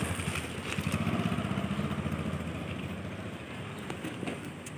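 Low, rapidly pulsing rumble of a motor vehicle's engine, loudest at first and gradually fading away.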